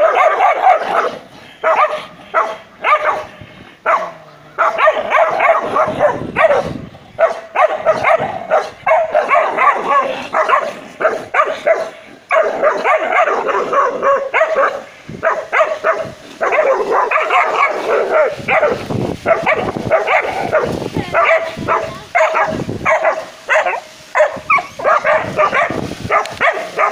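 Two dogs barking aggressively at each other face to face, a fast, nearly unbroken run of loud barks.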